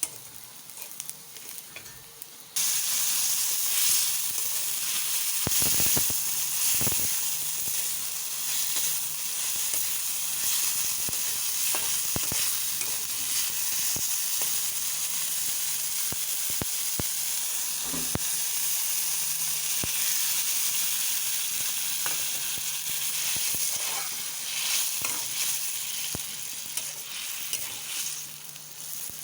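Food frying in hot oil in a pan: a steady sizzle that jumps much louder about two and a half seconds in, with a few scattered knocks.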